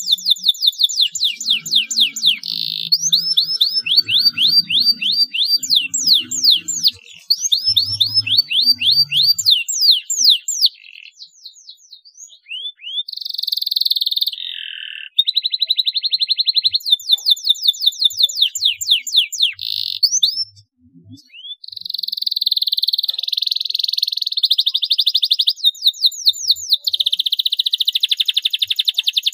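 Domestic canary singing: fast trills of repeated sweeping notes alternating with sustained buzzy rolls, broken by two short pauses, one about halfway through and one about two-thirds through.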